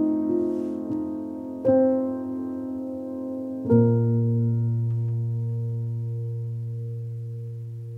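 Background piano music: slow chords that die away after each strike. The last chord comes about three and a half seconds in and is left ringing, fading slowly.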